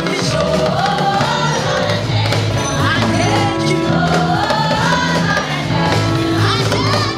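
Gospel choir of women singing together, backed by a live band with drums.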